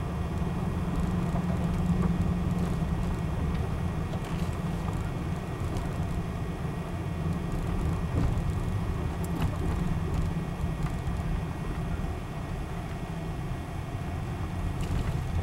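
Road noise inside a moving car: a steady low rumble of engine and tyres on the road.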